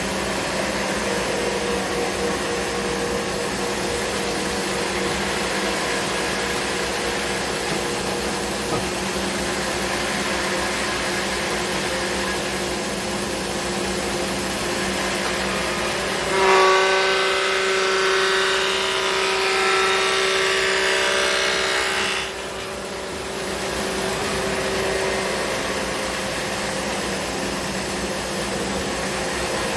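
Thickness planer running steadily, with a louder, higher-pitched cutting sound for about six seconds past the middle as a wide rough-sawn walnut board feeds through its knives; the cutting stops abruptly.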